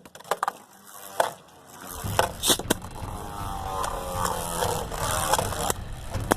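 Beyblade Burst spinning tops launched into a plastic stadium: after a few clicks of handling, a steady rolling whir starts about two seconds in, with sharp clacks as the tops strike each other and the stadium walls.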